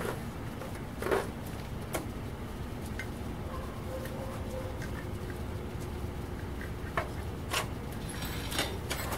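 Propane furnace burner running with a steady low rumble, broken by a few sharp metallic clinks and knocks as a tool works at the furnace mouth around the heating steel slab.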